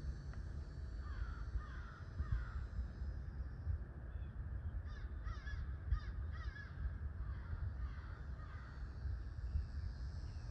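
Crows cawing in short series, with a run of about four louder caws in the middle, over a steady low rumble.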